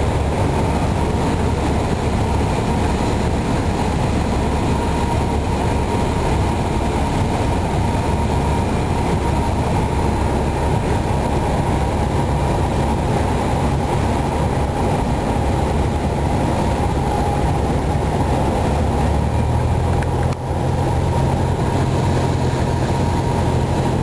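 Piston engine and propeller of a single-engine light aircraft droning steadily, heard inside the cabin during the descent to the runway. The engine note shifts up slightly about three-quarters of the way through, with a momentary dip in level just after.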